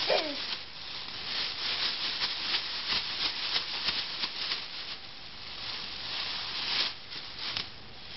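Thin plastic shopping bag crinkling and rustling as a baby grabs, shakes and waves it, in quick irregular crackles with a louder crackle near the end.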